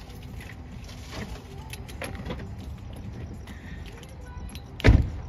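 Light rattles and clicks over a low outdoor rumble, then a single heavy thump near the end of a car door shutting.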